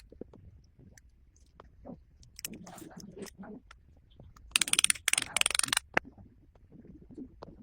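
Small watch parts and tools being handled: scattered light clicks and scrapes, then a loud run of rapid, even fine clicks lasting about a second just past the middle.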